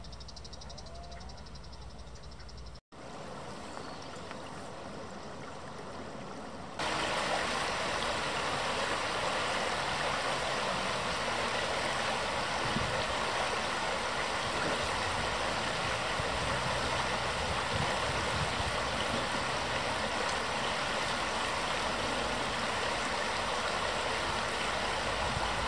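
Shallow river rushing over rocks, a steady, even noise of water that comes in abruptly about seven seconds in, after a few seconds of quieter outdoor ambience.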